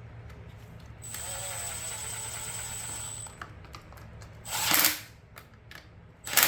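Power drill running steadily for about two seconds with a thin high whine, followed by two short, loud bursts of noise.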